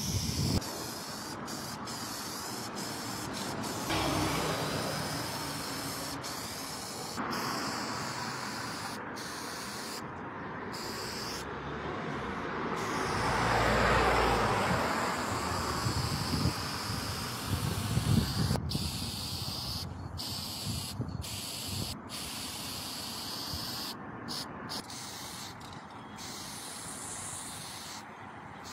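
Aerosol spray paint cans with wide fat caps hissing in spurts of varying length as graffiti is sprayed, with road traffic in the background and a louder swell of noise about halfway through.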